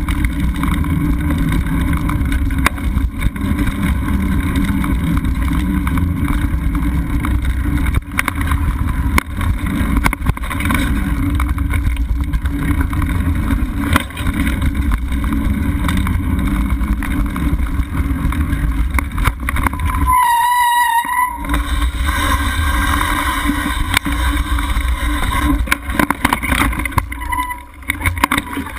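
Mountain bike riding fast on dirt singletrack: steady wind rumble on the microphone with frequent clicks and knocks as the bike jolts over bumps. About twenty seconds in comes a brief high-pitched squeal lasting about a second.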